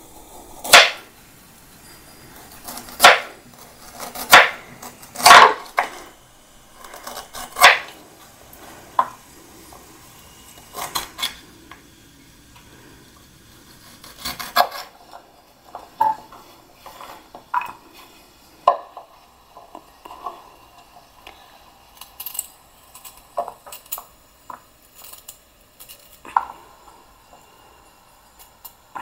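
A kitchen knife chops a raw beetroot into small pieces on a wooden cutting board: irregular sharp knocks of the blade striking the board. The knocks are loudest and most spaced out in the first eight seconds, then come as lighter, quicker cuts and taps.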